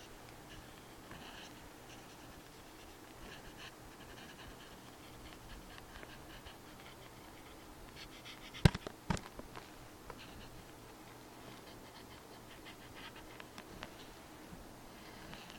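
Faint scratching of a felt-tip marker drawn across paper in short strokes, with two sharp knocks about halfway through.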